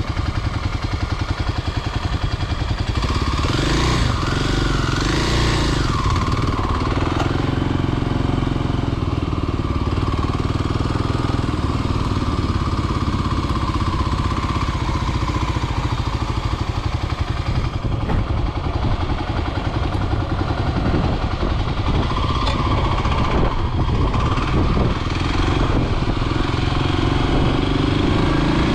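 Kawasaki KLX300 dual-sport's single-cylinder four-stroke engine running as the bike rides off, rising in pitch as it accelerates about three to five seconds in, then running steadily.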